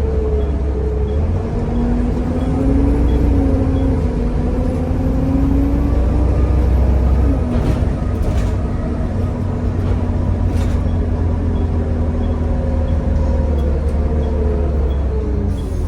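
Volvo B7TL double-decker bus's engine and driveline running under load with a deep low rumble, the pitch rising slightly early on, holding steady, then falling near the end as the bus eases off. A few brief rattles come through in the middle.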